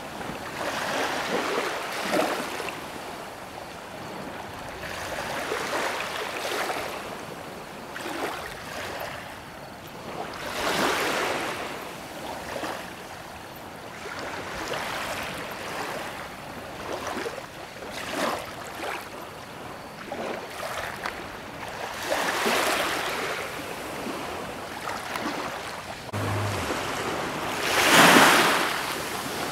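Sea waves washing in, an irregular series of surges of surf noise that each swell and fade over a second or two, the loudest one near the end.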